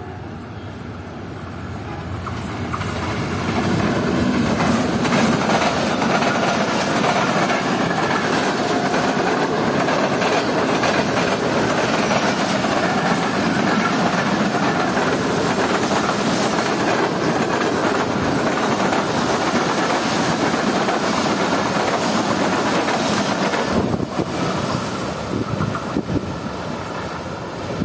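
Awam Express passenger train passing at speed, its wheels clattering over the track as the coaches run by. The noise builds over the first few seconds, holds steady and loud, and drops away near the end as the train moves off.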